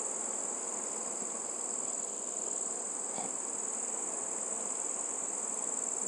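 Steady high-pitched whine over a faint background hiss, with one soft tap of the steel ladle against the steel vessel about three seconds in.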